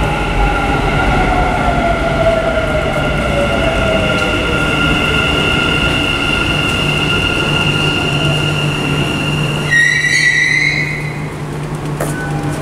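Dubai Metro train running into the station and slowing: the electric drive whine falls steadily in pitch over the first few seconds, over a steady low hum and high ringing tones. About ten seconds in a short electronic chime sounds, with a few faint clicks near the end.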